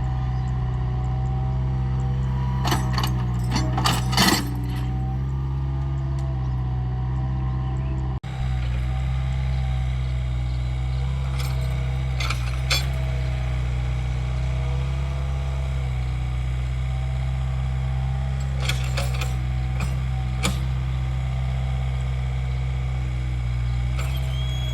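Mini excavator's diesel engine running steadily while it digs, with several bursts of metallic clinking and clanking from the arm and bucket. The sound drops out for an instant about eight seconds in.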